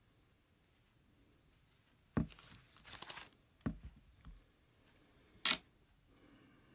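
Quiet room with handling noises: a dull knock, a brief rustle, a second knock, and a sharp click a couple of seconds later.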